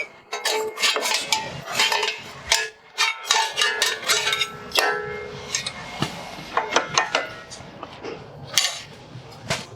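Metal tools clanking and clinking against brake hardware in a rapid, irregular series of sharp knocks, some of them ringing briefly.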